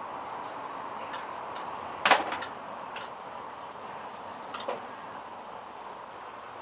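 A few sharp clicks and knocks over a steady hiss. The loudest knock comes about two seconds in, with a quick rattle after it, and a softer knock follows near the end.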